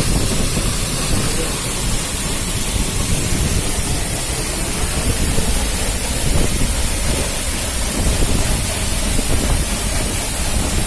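Waterfall rushing: a steady, loud wash of falling water with a deep, unsteady low rumble beneath it.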